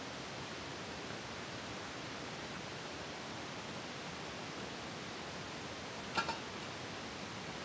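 Steady hiss, broken about six seconds in by a sharp ringing metallic clink, twice in quick succession: a tire iron knocking against the wheel rim while a tire is levered onto it by hand.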